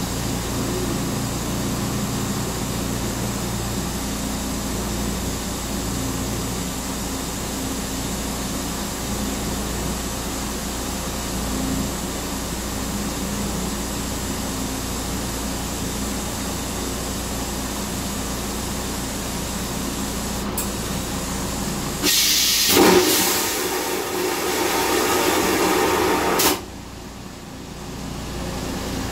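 Stainless-steel toilet of a Metro-North Comet II rail car flushing: over a steady background hum, a loud rushing hiss starts about 22 seconds in, lasts about four and a half seconds and cuts off suddenly, sweeping away the paper seat cover.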